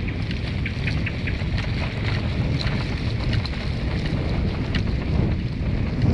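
Wind buffeting the microphone of a moving bicycle: a steady low rumble, with light, irregular clicks over it.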